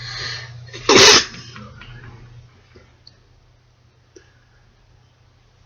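A person's single loud, wet sneeze about a second in.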